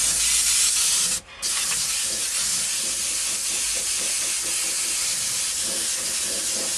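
Airbrush spraying paint: a steady hiss of air that cuts out briefly about a second in, then carries on.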